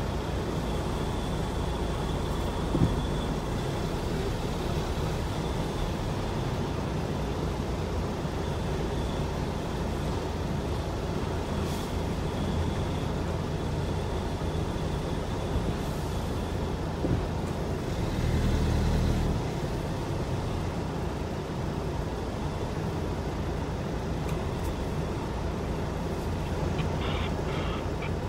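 Steady low rumble of vehicle engines heard from inside a car's cabin, with a heavy lorry's diesel close in front. There is a single knock about three seconds in, and a louder low rumble swells for about a second and a half about two-thirds of the way through.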